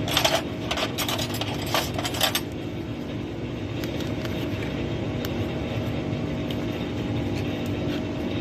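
Hand tools clinking against metal parts, a quick cluster of sharp clinks in the first two seconds or so, then quieter ticks over a steady mechanical hum.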